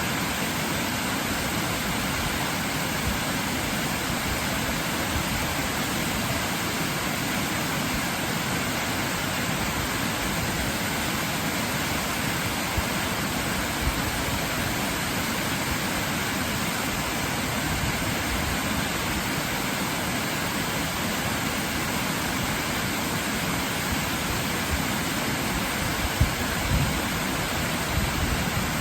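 Waterfall rushing in a steady, even roar of falling water, with a few brief low bumps near the end.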